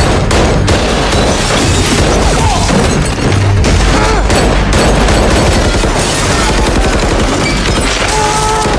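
Rapid pistol gunfire, many shots in quick succession without a break.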